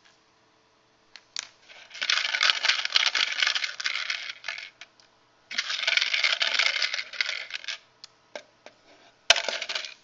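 Small cubes rattling and clattering inside a plastic bin as it is shaken, in two long spells of dense clicking. A few separate clicks and one sharp knock follow near the end.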